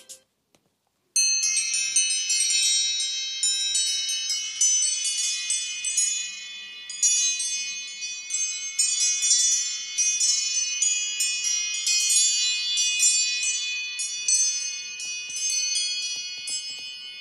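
An iPhone ringtone: a run of high, bell-like chime notes with overlapping ringing, starting about a second in after a brief silence.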